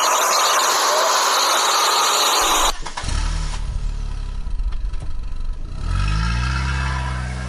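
A dense rushing noise cuts off abruptly, and an engine sound takes over: a car engine running low, then revving up about six seconds in. The toys on screen are pulled by a string, so the engine is a dubbed sound effect.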